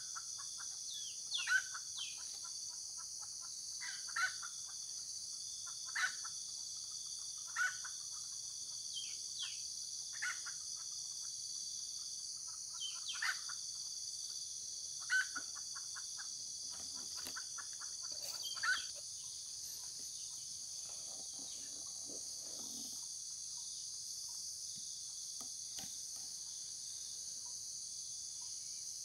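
Junglefowl giving short, chicken-like clucks about every one to two seconds, a dozen or so, which stop about two-thirds of the way in. A steady high drone of insects runs throughout.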